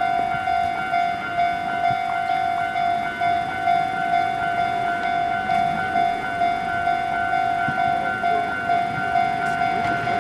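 Japanese railway level-crossing alarm ringing: an electronic bell repeating at a steady, even rhythm, the warning that a train is approaching.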